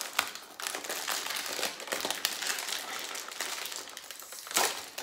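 A small Byrd's cookie bag being handled and opened, rustling and crinkling steadily, with a louder rustle about four and a half seconds in.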